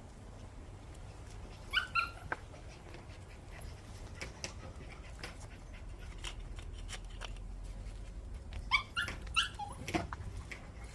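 A mixed-breed dog giving short high-pitched calls in two bouts, about two seconds in and again around nine seconds in, with light clicks and taps in between.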